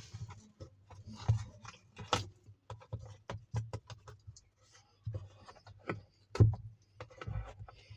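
Irregular clicks, knocks and scrapes of hard plastic parts being handled as the pulsator is taken out of a semi-automatic washing machine's wash tub to clear the clogged cloth lint that was making it noisy, over a faint steady low hum.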